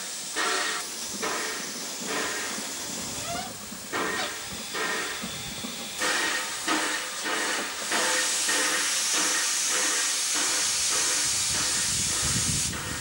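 Narrow-gauge tank steam locomotive working slowly, with uneven chuffs and steam hissing around the cylinders, then a steady loud hiss of escaping steam from about eight seconds in that cuts off just before the end.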